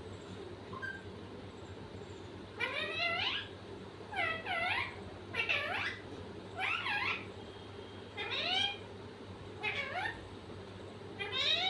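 A pet making a run of about eight short mewing calls, each rising and falling in pitch, roughly one a second.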